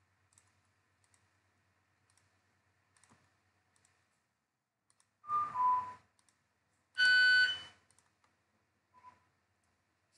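Faint mouse clicks, then two short electronic beeps about two seconds apart: the first steps down in pitch, and the second is a louder steady buzzer-like tone. A brief blip comes near the end.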